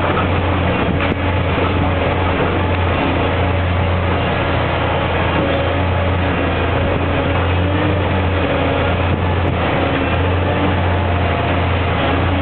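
Diesel engine of a long-reach demolition excavator running steadily, a loud, even low hum.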